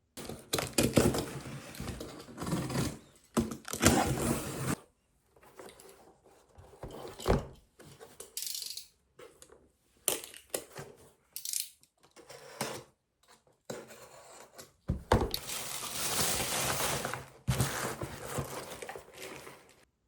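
Packaging being unwrapped by hand: long stretches of loud rustling and tearing of paper or plastic wrap, with scattered clicks and knocks from a box and its contents being handled between them.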